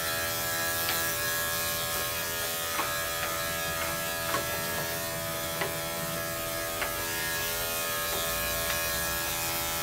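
Electric dog grooming clippers buzzing steadily as they clip a dog's coat down short, with a few faint clicks from the blade.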